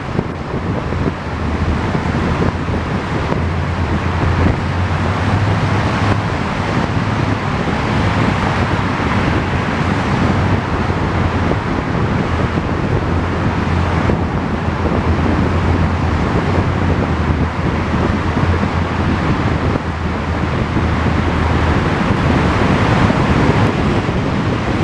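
A vehicle travelling on the road: a steady low engine drone that shifts slightly in pitch, under heavy wind noise buffeting the microphone.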